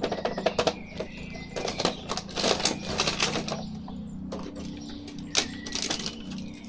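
Clear plastic blister packaging crackling and clicking in irregular clusters as it is slid out of a cardboard toy box and an action figure is pulled free of it.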